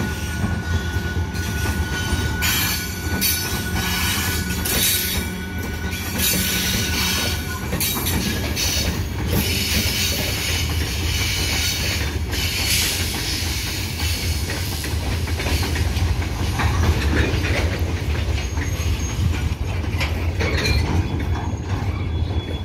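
A WAG-12B electric freight locomotive and its train of covered goods wagons rolling past at speed: a steady heavy rumble with irregular clacks of wheels over the rail joints. A steady high whine rides over it for about the first eight seconds.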